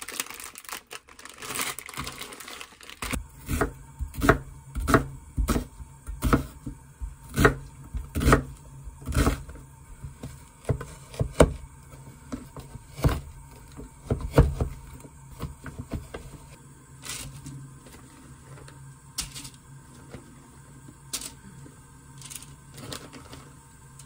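A plastic instant-noodle packet crinkling, then a chef's knife chopping on a wooden cutting board: a run of sharp knocks, one or two a second, for about twelve seconds. Lighter scattered taps follow near the end.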